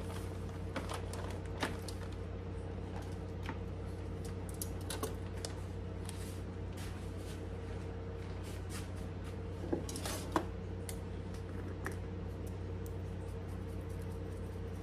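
Scattered small clicks and taps of metal tongs and a plastic zip-top bag as raw chicken breasts are handled onto a paper plate, with a few sharper clicks about ten seconds in, over a steady low hum.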